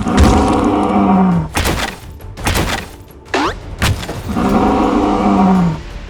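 A toy or sound-effect dinosaur roar, heard twice: two matching calls about 1.5 s long, each dropping in pitch at the end. Sharp knocks and a quick falling whistle come between them.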